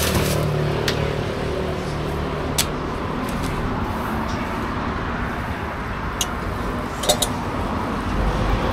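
Road traffic running steadily, with a few sharp clicks and knocks scattered through, two close together about seven seconds in. A low rumble swells near the end.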